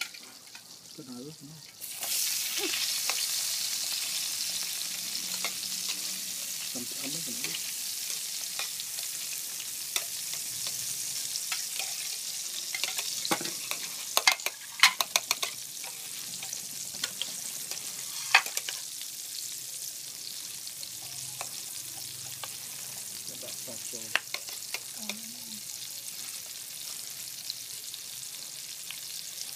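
Onion wedges sizzling in hot fat in a frying pan. The sizzle starts suddenly about two seconds in, as the onions go into the pan, then slowly eases to a steady fry. Chopsticks click against the pan now and then, most often in a cluster around the middle.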